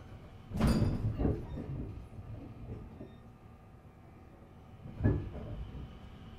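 Passenger doors of a JR West 521 series electric train sliding shut with a sharp thump about half a second in and a smaller knock just after, heard from inside the car; another thump follows about five seconds in, over the stationary train's low hum.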